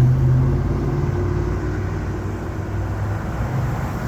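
Road traffic at an intersection: a motor vehicle's engine hum over tyre and road noise, loudest in the first two seconds and then easing off.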